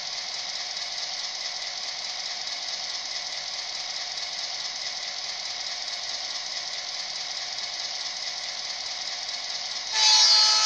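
ESU sound decoder in an HO scale EMD SD9 model playing a steady EMD 567 diesel engine sound through a small speaker, thin with no bass. Near the end a louder horn blast with several tones starts and runs on.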